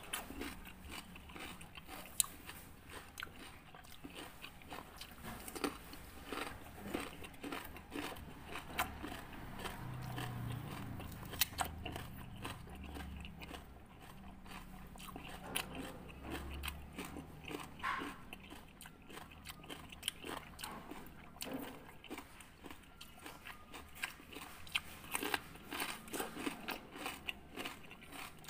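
Raw cucumber being bitten and chewed close to a clip-on microphone: a steady run of crisp, wet crunches and mouth sounds.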